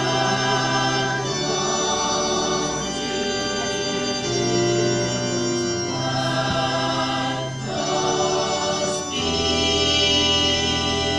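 Girls' school choir singing slow, held chords that change every second or two, swelling louder near the end.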